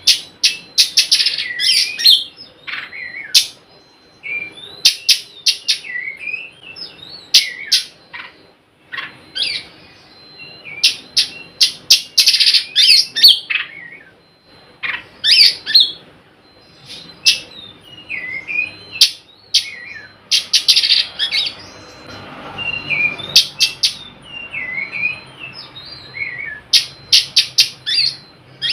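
Oriental magpie-robin singing in the 'nyrecet' style: bursts of rapid, harsh chattering notes alternating with whistled notes that slide up and down, coming again every few seconds.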